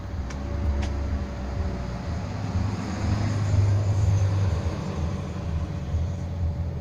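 Street traffic: a motor vehicle running on the street, a low rumble with a steady hum that swells as it passes about three seconds in.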